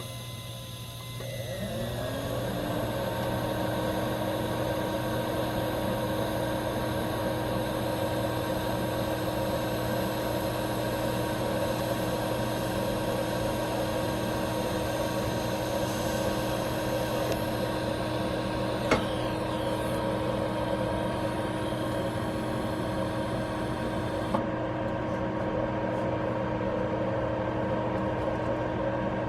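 A small motor or machine starting up, its hum rising in pitch over about a second before settling into a steady running drone. Two brief clicks sound later on.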